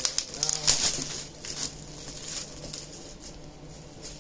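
Clear plastic bag crinkling and rustling as it is handled and pulled off a lunchbox: a busy run of crackles in the first second and a half, then fainter, scattered rustles.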